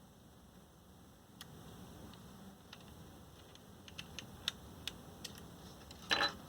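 Scattered small hard clicks and taps from handling a laptop hard drive and its parts, with a louder short clatter near the end.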